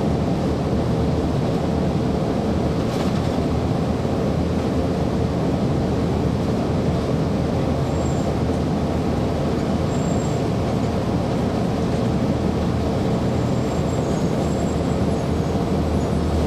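Cummins ISC inline-six diesel of a 1999 Nova Bus RTS transit bus running with a steady drone and a constant hum, heard from the rear seats inside the bus, where the engine sits.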